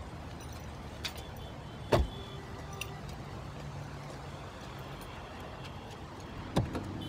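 A car idles with a steady low hum. A car door slams shut about two seconds in, and there are lighter knocks about a second in and near the end.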